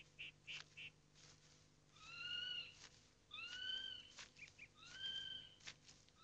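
Forest birds calling: a quick run of short high chirps that dies away about a second in, then three drawn-out whistled calls about a second and a half apart, each rising slightly and falling away.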